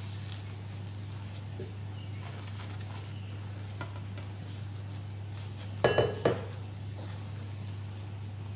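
Stainless steel mixing bowl clanking twice in quick succession, with a brief metallic ring, about six seconds in, as whipped egg whites are scraped out of it with a spatula. A steady low hum runs underneath.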